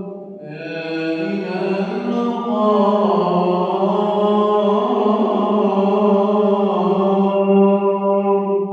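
A man's solo voice chanting an Islamic call in one long, held, ornamented phrase, with the pitch turning slowly between sustained notes.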